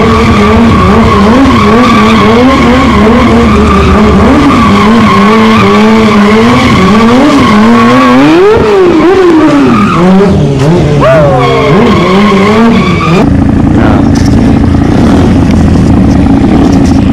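Motorcycle engine revved up and down over and over as a stunt rider works the throttle on a concrete lot, over a steady high tyre squeal. About 13 seconds in, the squeal stops and a steadier, even engine note from a Honda motorcycle close to the microphone takes over.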